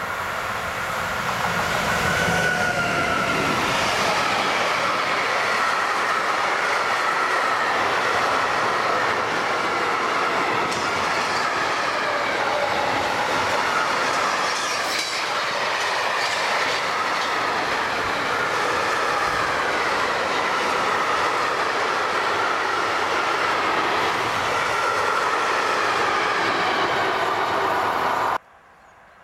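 Freight train of tank wagons hauled by an electric locomotive passing close by: a steady loud rumble and clatter of wheels on rail, with a wavering high-pitched wheel squeal running through it. It cuts off suddenly near the end.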